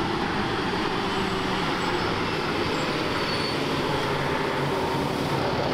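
Heavy B-double truck driving past on the open road: a steady diesel engine drone under constant road and tyre noise.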